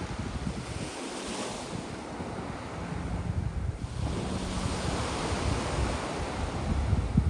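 Sea waves breaking and washing up a beach of sand and small pebbles, with a hissing wash swelling about a second in. Wind gusts rumble on the microphone.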